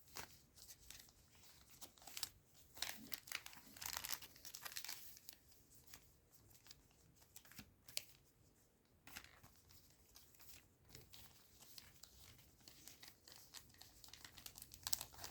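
Packaging of a trading-card booster box being handled and torn open: faint, intermittent crinkling and tearing, in scattered bursts with short pauses.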